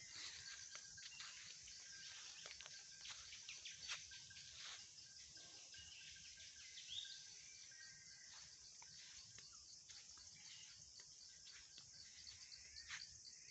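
Faint forest ambience: a steady high hiss with scattered small clicks and crackles, and one brief bird chirp about seven seconds in.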